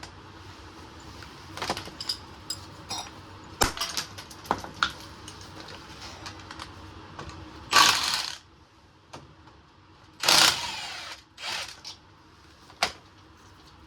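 Irregular metal clanks and knocks from hand tools and steel parts, with two louder clattering scrapes about eight and ten and a half seconds in, the second ringing briefly.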